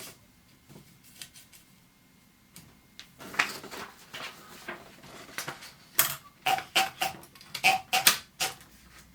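Mechanical clicks and clacks of a wartime Continental manual typewriter's parts being worked by hand: a few faint ticks, then from about three seconds in a quick, irregular run of sharper clicks, some ringing briefly like struck metal.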